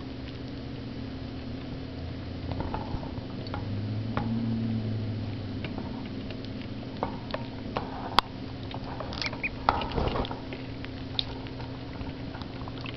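Cayuga ducklings feeding, pecking at a dish of crumbled feed and shuffling in the bedding: scattered small taps and pattering, with one sharp click about eight seconds in and a busier patch of scrabbling soon after. A steady low hum runs underneath.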